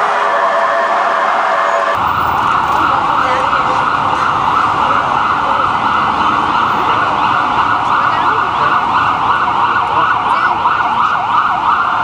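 Ambulance sirens. About two seconds in the sound changes abruptly to a fast yelping siren, rising and falling several times a second, over a low traffic rumble.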